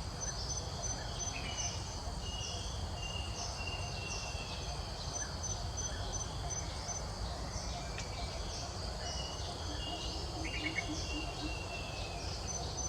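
Insects chirping in repeated short, high-pitched pulses over a steady low rumble, with a brief rapid run of notes about ten and a half seconds in.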